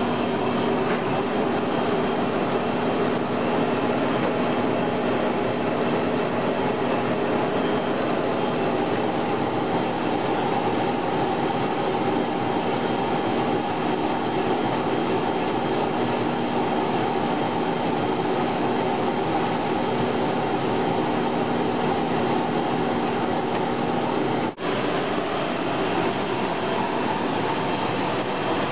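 GMS micromailer paper-handling machine running at speed: a steady mechanical whir with a constant motor hum as paper pieces rush along its conveyor belts. The sound breaks off for an instant near the end.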